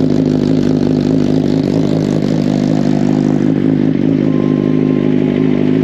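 Suzuki GSX-R1000 inline-four motorcycle engine running at a steady, even speed.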